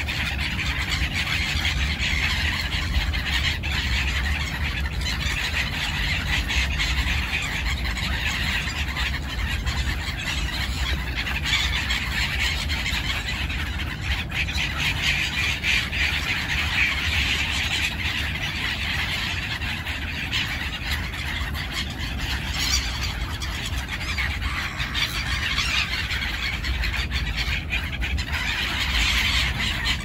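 A large flock of gulls calling all at once, a dense, continuous din of squealing cries. A steady low rumble runs underneath.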